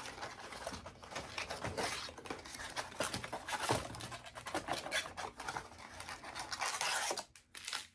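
Trading-card packs and cards being handled close up: scratchy crinkling of wrappers and card stock with many small clicks, busiest near the end and stopping just before it.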